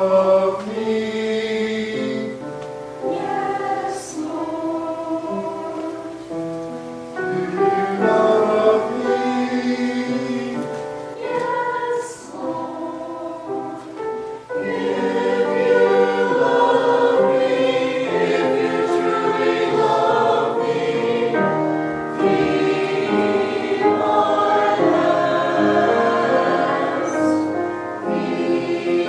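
A choir singing a hymn; the singing grows fuller and louder about halfway through.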